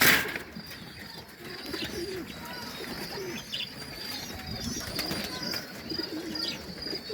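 Domestic pigeons cooing, many short low calls overlapping, with a thin high chirping going on throughout. A short loud rustle right at the start.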